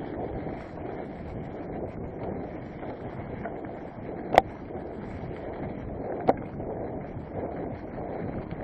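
Mountain bike rolling over a trail carpeted with dry fallen leaves: a steady rush of tyre noise and wind on the microphone. Two sharp knocks are heard around the middle, about two seconds apart, the first the louder.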